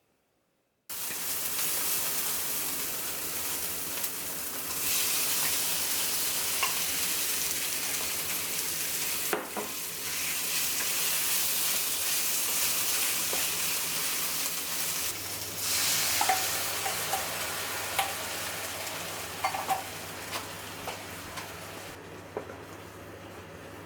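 Food sizzling as it fries in a pan and is stirred, with small clicks of the utensil against the pan. The sizzle starts suddenly about a second in and quietens near the end.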